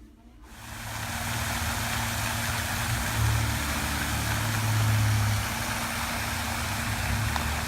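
Car on the road: a steady low engine rumble under road and wind noise, with the rumble swelling for a couple of seconds midway.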